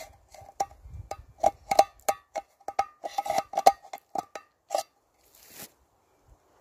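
A knife blade striking and cutting into an empty steel tin can, in a quick, irregular series of sharp metallic knocks, the can ringing at each one. It is cutting vent slots to make a tin-can stove. The strikes stop a little under five seconds in, followed by a brief rustle.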